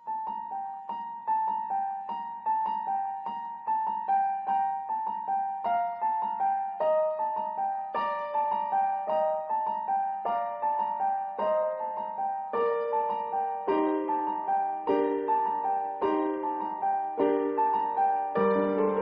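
Background piano music: a light, repeating melody of quick, evenly paced notes, with lower notes joining in partway through and a deeper bass note entering near the end.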